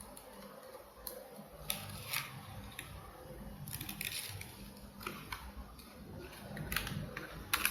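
A small cardboard product box handled and opened by hand: scattered clicks, taps and scrapes of the packaging over a faint rustle.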